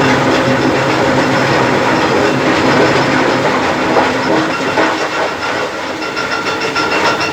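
Stone-crushing machine and its conveyor belt running: a loud, steady mechanical clatter with a fast light rattle over a motor hum.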